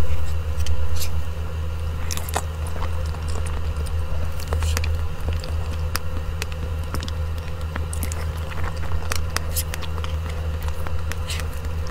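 Close-miked eating sounds: a fork cutting into soft mousse cake and clicking against a small plate, with soft mouth and chewing sounds. A steady low hum lies underneath.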